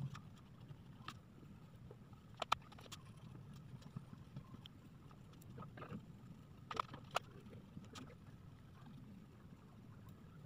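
Faint steady low hum with a few light clicks and taps from crayon work on paper at a table: two close together about two and a half seconds in and two more near seven seconds.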